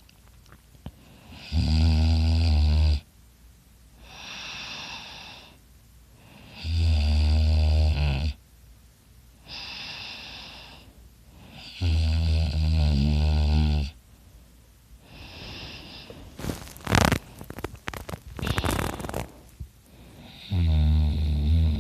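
A sleeping man snoring loudly: a rattling snore on each in-breath of about one and a half to two seconds, coming roughly every five seconds, with a softer breathy sound on each out-breath between. About two-thirds of the way through, the rhythm is broken by a few seconds of irregular sharp noise.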